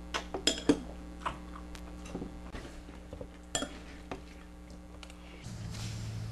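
Metal spoon clinking and scraping in a cereal bowl, a quick run of clinks in the first second and a few more up to about four seconds in. About five and a half seconds in, a louder, lower steady hum takes over.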